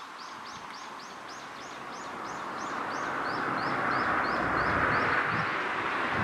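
A bird calls a quick run of high chirps, about three a second, stopping near the end. Under it a rushing noise swells over the second half as the D51 steam locomotive approaches up the grade.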